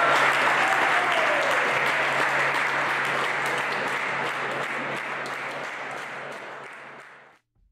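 Crowd applauding in a large hall, the clapping slowly dying away over about seven seconds and then cutting to silence just before the end.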